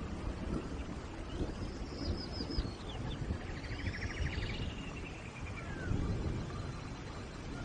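Steady rain pattering, with small birds calling over it: a run of quick high notes about a second and a half in, a fast trill around the middle, and a falling whistle a little later.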